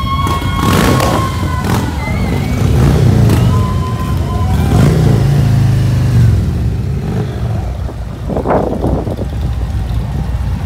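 A procession of large touring motorcycles riding past, their engines rumbling, with louder swells as bikes rev by about 3 and 5 seconds in. A short high steady tone sounds near the start and again briefly later.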